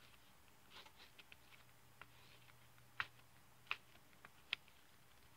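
Pen writing on a small paper card: faint short scratches of the letter strokes, with three sharper ticks in the second half as the pen strikes the card.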